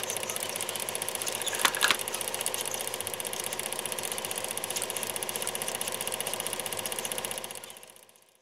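Steady, fast mechanical whirring and clattering from an end-card sound ident, with two sharp clicks about one and a half seconds in. It fades out near the end.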